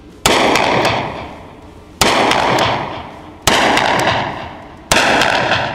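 Taurus .38 revolver firing four shots, about a second and a half apart, each shot echoing off the walls of an indoor concrete range.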